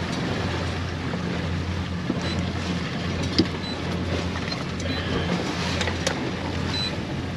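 Steady low hum of a boat's motor running, with wind and water noise, and one sharp tap about three and a half seconds in.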